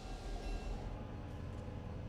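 Diesel locomotive idling: a steady low rumble with faint steady tones above it. The higher sounds thin out about a second in.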